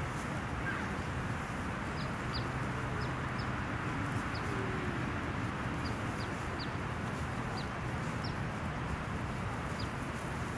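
Birds chirping: about a dozen short, high, falling chirps at irregular intervals, over steady outdoor background noise.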